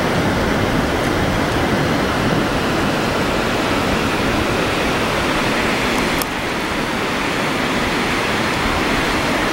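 Steady rushing noise of wind and water on an open fjord, with irregular low buffeting on the microphone; it drops slightly about six seconds in.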